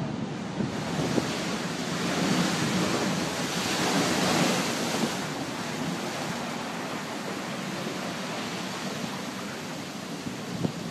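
Storm waves crashing over a sea wall and washing across a flooded promenade, with wind buffeting the microphone. The surge grows louder about two seconds in, peaks around four seconds, then eases to a steady wash of water.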